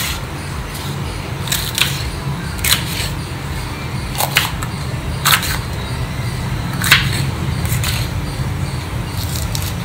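Ceramic knife slicing a green bell pepper on a wooden cutting board: several short, crisp cuts and taps against the board at irregular intervals, over a steady low hum.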